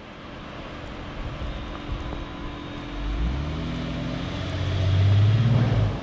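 Ram ProMaster van's engine revving as the stuck van tries to drive out of snowy mud onto traction boards under its front wheels. The engine note rises about halfway through, is loudest near the end, then drops away.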